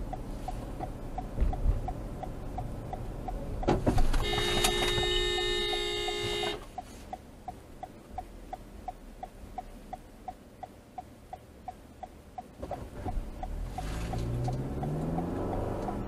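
A car's turn-signal indicator ticking evenly, about two ticks a second, inside the cabin. A little before the middle there is a thump, then a car horn sounds steadily for about two and a half seconds. Near the end an engine rises in pitch as it speeds up.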